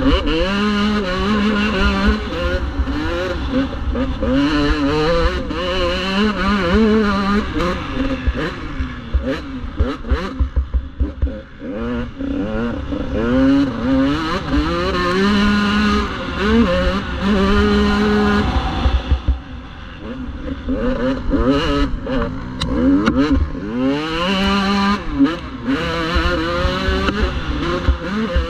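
Motocross bike's engine heard from on board, revving up and dropping off in pitch over and over as the rider accelerates and shuts off around the track, easing off twice, about a third and two-thirds of the way in. Wind and bumps rumble on the microphone underneath.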